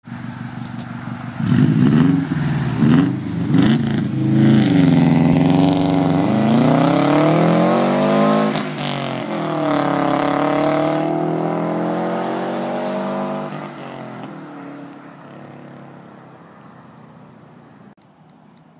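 2002 Subaru WRX's turbocharged EJ205 flat-four through a Stage 2 3-inch custom turbo-back exhaust (Invidia up-pipe and downpipe). A few quick revs, then it accelerates hard with the pitch rising, changes gear about nine seconds in and pulls again. The sound then fades off.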